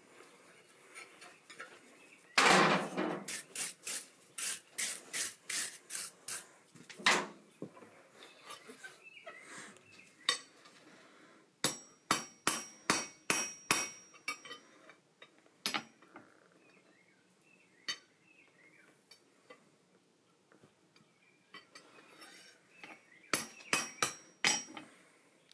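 Hand hammer striking hot steel on an anvil, in runs of quick blows at about three a second with a metallic ring on some strikes, separated by pauses and a few single taps.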